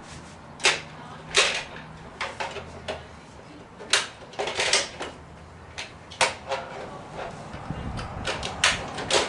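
Toughbuilt C700 steel folding sawhorse being handled and folded: a series of sharp metal clicks and clacks at irregular intervals, the loudest about a second in, near four seconds and near the end.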